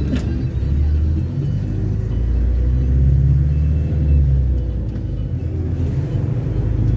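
Diesel engine of a Volare V9L minibus on an Agrale chassis running while the bus is under way, heard from inside the cabin. It is a low rumble that swells a little in the middle.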